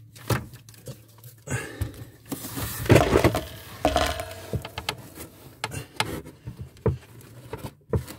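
Rustling and handling noises with scattered light knocks as dryer sheets are stuffed into the gap around a hose where it passes through a wall. The rustling is loudest about three seconds in.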